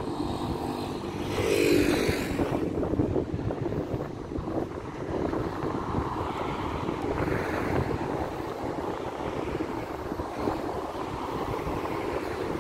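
Street ambience: steady wind rumble on the microphone over passing traffic, with a short louder pitched sound about two seconds in.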